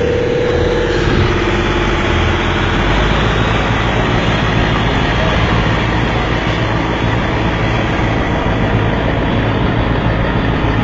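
A fishing boat's engine running steadily, a constant low hum under broad machine noise.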